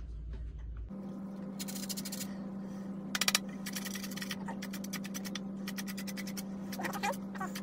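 Lime being grated on a hand grater for zest: runs of quick rasping strokes in short bursts, over a steady low hum.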